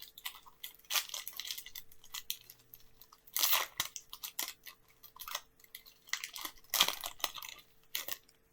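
Foil Pokémon booster pack wrapper being crinkled and torn open by hand, in irregular crackling bursts; the loudest come about three and a half and about seven seconds in.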